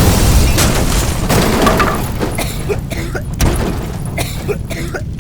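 Fireworks going off: a loud boom just before, then a rapid string of bangs and crackles that slowly dies down.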